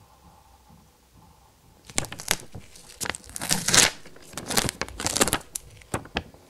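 Thin paper pages of a printed leaflet booklet being flipped through by a gloved hand: a quick run of rustles and crinkles starting about two seconds in, loudest in the middle.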